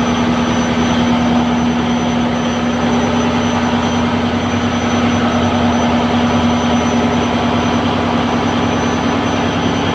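Fishing boat's inboard engine running steadily and loudly inside its engine room, a fast even pulsing under a strong steady hum.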